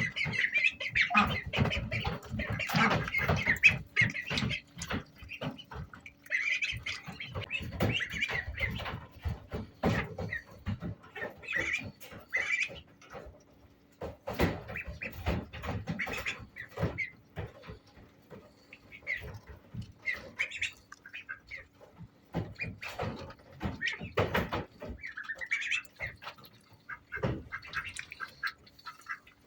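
Indian Runner ducklings peeping in short bursts, mixed with many short knocks and scrapes.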